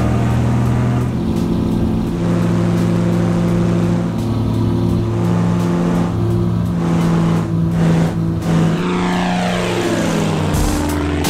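Single-engine light aircraft's piston engine and propeller running at high power during its takeoff run, a loud steady drone that rises in pitch about a second in. Near the end a plane passes overhead, its engine note falling as it goes by.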